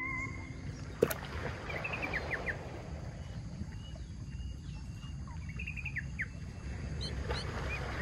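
Outdoor ambience with birds chirping in short high calls, two brief clusters, over steady low background noise. A single sharp click about a second in.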